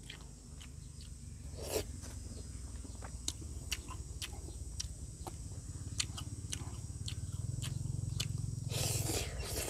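Eating sounds: a spoon clicking and scraping against a plate and chewing, over a low steady hum that swells near the end, with a brief rustle about two seconds in and another near the end.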